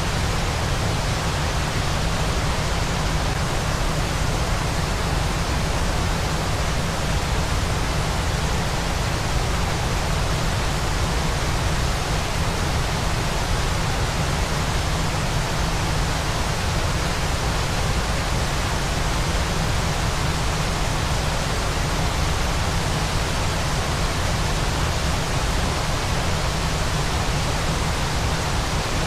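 Waterfall rushing in a steady, unbroken roar of falling water, deepest in the low end, with no change in level.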